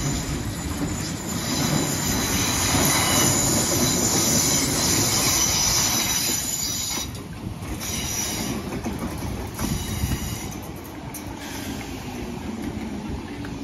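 Merseyrail Class 507 electric multiple unit pulling slowly into the station over curved track. High-pitched wheel squeal rings out over a steady rumble and rattle of wheels, then fades about seven seconds in as the carriages roll past.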